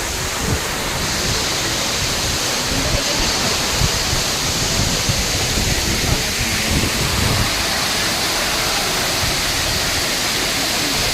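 Waterfall: a steady, dense hiss of falling water over rock with an unsteady low rumble, growing brighter about a second in.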